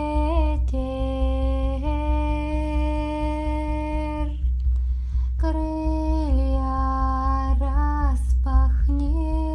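Shamanic frame drum beating a steady low rhythm under a woman's wordless humming in long held notes that step between pitches. The voice breaks off briefly about halfway through and again near the end.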